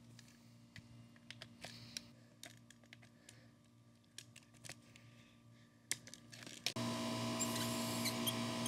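Small clicks and rattles as the spray gun is fitted to the pressure washer's high-pressure hose. Near the end, an outdoor hose spigot is opened and water rushes through it with a steady hiss and a faint whistle.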